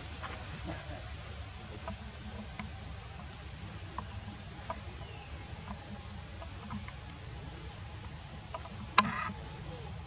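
Steady high-pitched drone of forest insects, with faint scattered ticks and one sharp knock about nine seconds in.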